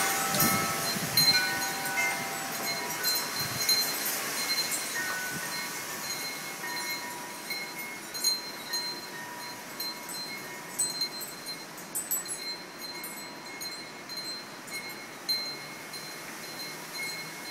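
Wind chimes ringing in gusty wind: several overlapping notes in the first few seconds, thinning to scattered high tinkles as the level falls away.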